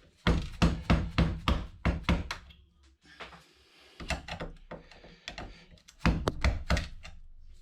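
Sharp knocks and clicks of a small hand tool working on a computer motherboard, prying parts off. A quick run of about eight knocks in the first two and a half seconds, then lighter taps, then a second loud group near the end.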